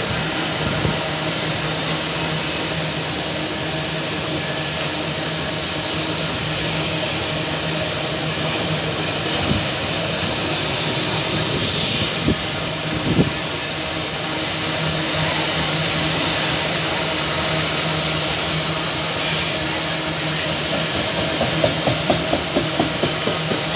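Loaded iron-ore freight wagons rolling past: a steady rumble and hiss of steel wheels on the rails, with a quick run of clacks from the wheels over rail joints near the end.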